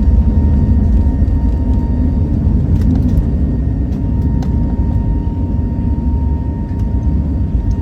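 Cabin noise of an Airbus A320neo on the ground, heard from a seat near the front: a steady low rumble from the engines and airframe, with a thin steady tone above it and a few faint clicks partway through.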